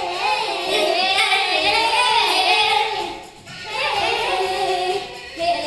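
A child singing a melody in a high voice, with a short break about three and a half seconds in before the singing resumes.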